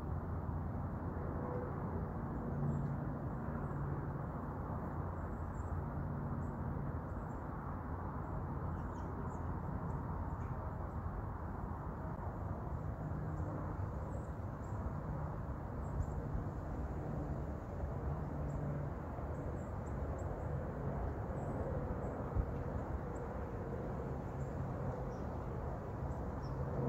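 Wind blowing across the camera microphone, a steady rumbling noise.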